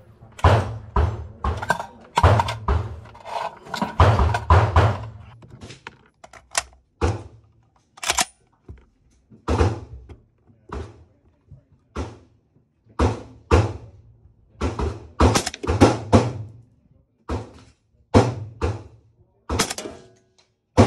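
Suppressed FN SCAR 16S rifle firing .223 rounds through a Nomad-L suppressor: about thirty sharp shots, each with a short ring. The shots come in quick strings in the first six seconds, then more evenly spaced, sometimes in pairs.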